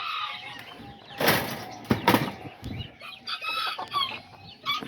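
Kikiriki bantam chickens clucking, with short high calls in the second half. Two brief rustling bursts come about one and two seconds in.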